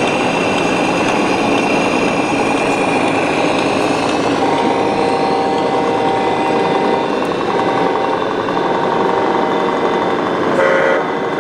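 Electronic sound modules in RC model trucks playing diesel-engine running sounds, over the steady hubbub of a busy exhibition hall, with a brief louder tone near the end.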